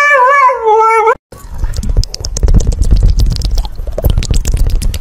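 A husky howls with a wavering, rising and falling pitch for about the first second, then stops abruptly. It is followed by a loud, low, rough rumbling, crackly at times, for the rest of the time.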